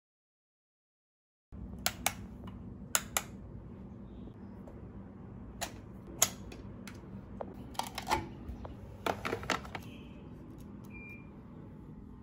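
A series of sharp plastic clicks and taps from small objects being handled, including a phone charger plug pushed into a switched power strip about six seconds in, over a low steady hum. The sound starts only about a second and a half in.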